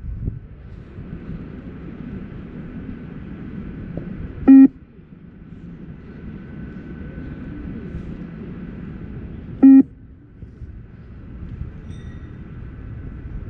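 Beep test (multi-stage fitness test) recording sounding two short electronic beeps about five seconds apart, each marking the end of a shuttle run during level 12, over a steady low rumble.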